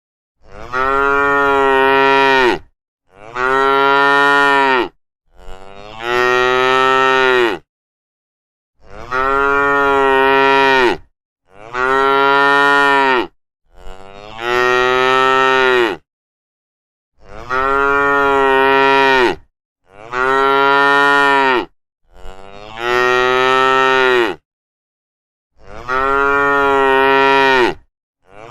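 Cow mooing over and over: about ten long, loud moos in a row, each about two seconds, with short silent gaps between.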